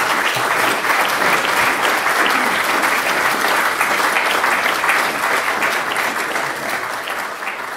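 Audience applause: a room of people clapping steadily, tapering off near the end.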